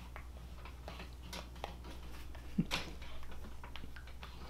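Quiet room tone: a steady low hum with scattered light clicks and taps, one sharper tap a little past the middle.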